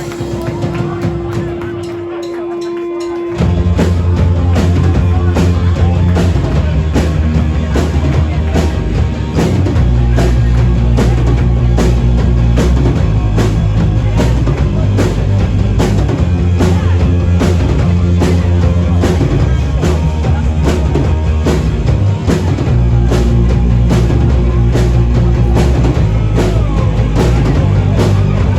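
Rock band with drums, bass and electric guitar playing live: a single held note for about three seconds, then the full band comes in loudly with a steady drum beat and heavy bass.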